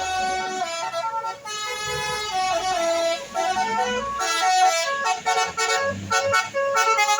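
Indonesian bus 'telolet' multi-tone air horn playing a quick tune, its notes stepping rapidly from one pitch to the next and sometimes overlapping.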